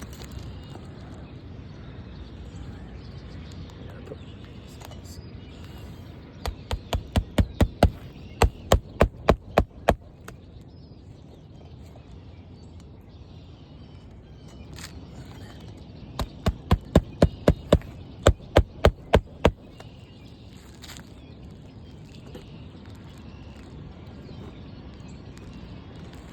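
Hammer driving roofing nails into a replacement asphalt shingle: two runs of quick, sharp blows, about a dozen each at three to four a second, lighter tapping first and then full strikes.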